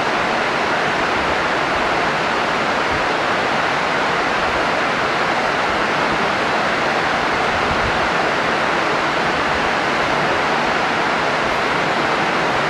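Steady, even hiss with no other sound: the recording's constant background noise.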